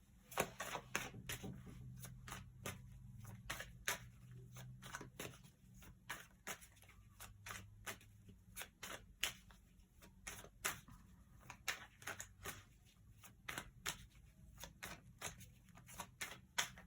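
A deck of tarot cards being shuffled and handled by hand: a run of soft, irregular snaps and clicks, a few each second, over a faint low hum.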